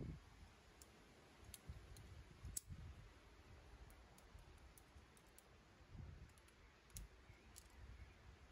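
Faint, scattered clicks of carabiners being handled and clipped on a DMM Pivot belay device.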